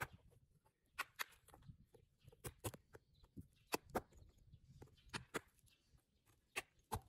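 Faint, sharp hard taps or knocks, mostly in pairs, coming about every second and a half.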